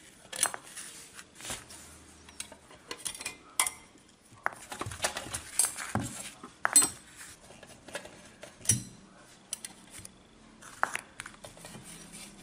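Screwdriver and small metal screws clicking and clinking while the two metal-can power transistors and their finned heatsink are unscrewed from a power supply's chassis. The clicks come singly and irregularly, with short gaps between them.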